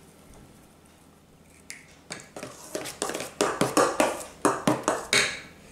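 Metal spoon stirring thick mayonnaise in a stainless-steel bowl, clicking and scraping against the bowl's sides in quick, irregular strokes that begin about a second and a half in.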